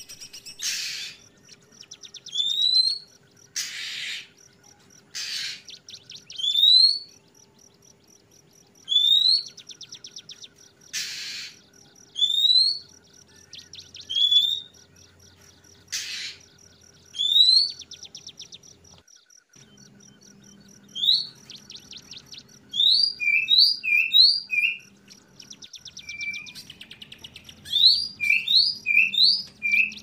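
Oriental magpie-robins (kacer) calling the 'wik plong' call: short upslurred whistles repeated every second or two, broken by harsh rasping bursts over a fast, steady ticking chatter. The whistles come in quicker clusters from about two-thirds of the way in, and a faint steady low hum runs underneath.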